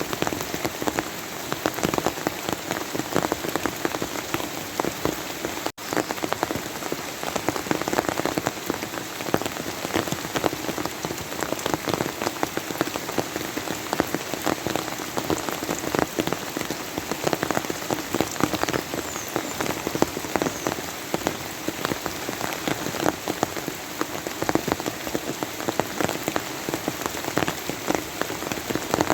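Steady rain falling on a surface: a dense patter of countless individual drops. There is a split-second dropout about six seconds in.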